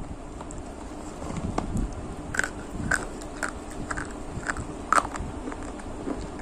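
Close-miked eating of biryani and curd: chewing and wet mouth sounds, with a run of sharp clicks about twice a second from about two seconds in.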